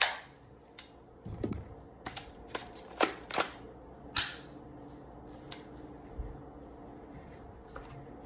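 Sharp metallic snaps and clicks from the reassembled Micro Draco AK pistol being handled, beginning with one loud snap and followed by several more clacks over the next few seconds. These are typical of the dust cover seating and the action being worked.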